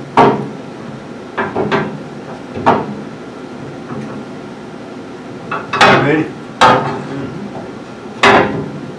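Irregular sharp metal clanks and knocks, about seven, some ringing briefly: a steel front coil spring being worked into the lower control arm of a 1963 Chevy C10 front suspension.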